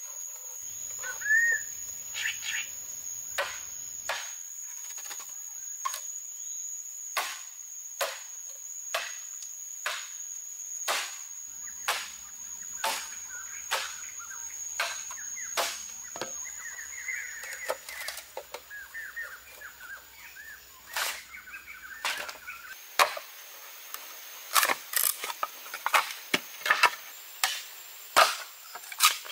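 Machete striking green bamboo: a run of sharp woody chops about once a second, coming closer together and louder in the last few seconds.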